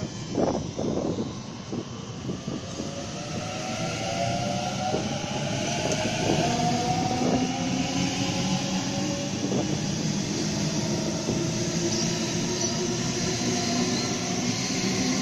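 Sydney Trains double-deck electric passenger train running close by. A few sharp clacks from the wheels in the first second or so give way to a steady rail rumble, with the electric traction motors' whine gliding in pitch through the middle.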